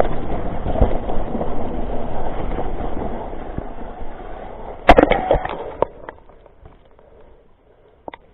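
Mountain bike rolling fast over rough trail: steady tyre and rattle noise with many small knocks. There is a sharp loud knock about five seconds in, then the noise dies away to near quiet.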